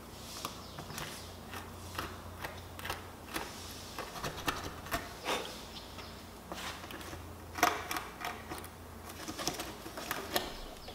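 Irregular light clicks, taps and scrapes of small hand work at the screw holes of an RV tail-light mount, a small drill bit worked by hand to ream rust out, over a steady low hum.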